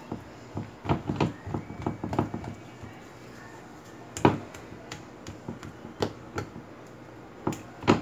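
Silicone spatula stirring and folding a soft, sticky bread dough in a glass bowl: irregular light knocks and taps of the spatula against the glass, the loudest about four seconds in and near the end.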